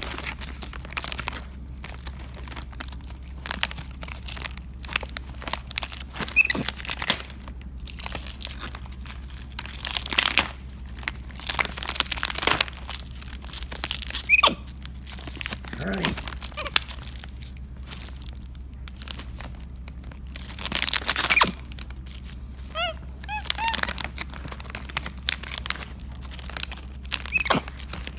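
A capuchin monkey tearing at and crinkling a foil-lined plastic snack bag in irregular bursts, with a few short high squeaks, including a quick run of them about three quarters of the way in.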